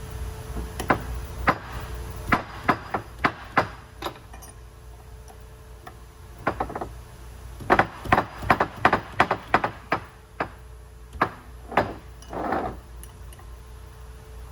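Hand tools knocking and clanking against metal parts: two bursts of irregular sharp knocks, then a short rougher scrape near the end, over a faint steady hum.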